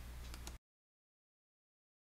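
Faint room tone with a steady low hum and a few faint clicks, cut off abruptly about half a second in, then dead digital silence.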